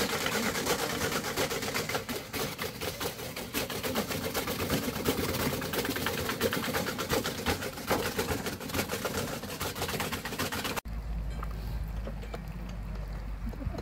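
Hand-cranked cast-iron apple grinder turning and crunching apples into pulp: a fast, dense, steady rattle of clicks. It cuts off abruptly about eleven seconds in, leaving a quieter low rumble.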